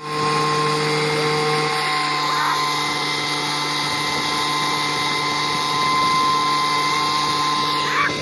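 Small engine-driven blower running steadily at a high, even speed, with a constant whine.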